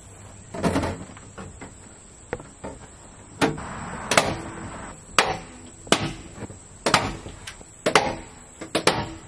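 Staples being driven to fasten hardware cloth over vent holes in a plastic IBC tote: about ten sharp knocks against the tote wall, roughly one a second, with three in quick succession near the end.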